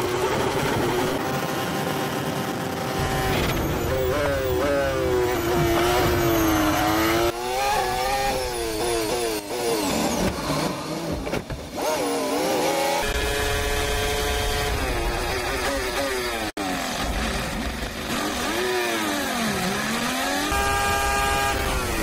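Onboard sound of Mercedes Formula 1 cars' turbocharged V6 hybrid engines at high revs, holding a steady high pitch on the straights and dropping through several downshifts before climbing again under acceleration.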